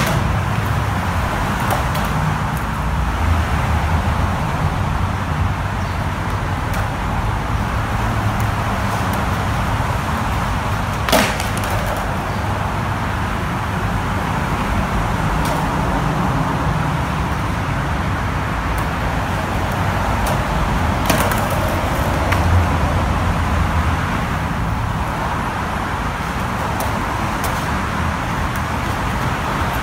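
Steady traffic rumble and road hiss, with skateboard wheels rolling on concrete and a sharp clack about 11 seconds in and again about 21 seconds in.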